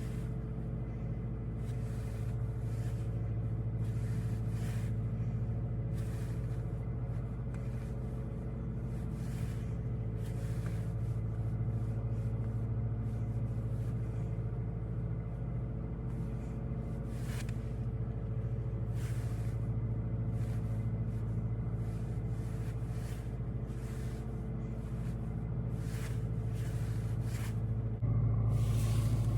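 VW Golf 8 GTI's 2.0-litre turbocharged four-cylinder petrol engine running at a steady pace while driving, a constant drone with faint clicks now and then. Near the end it suddenly gets louder.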